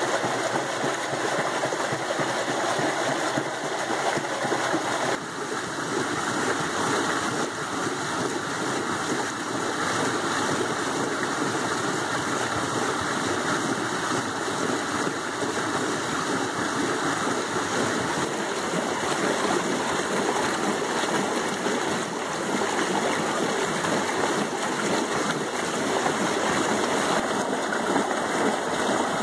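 Creek water rushing and splashing through a homemade paddle water wheel as it turns: a steady, even rush with no rhythm in it.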